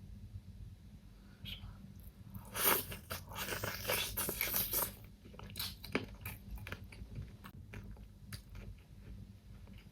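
Close-miked mukbang eating: a crunchy bite with a dense crackling crunch lasting about two seconds, starting about two and a half seconds in, then scattered small clicks of chewing.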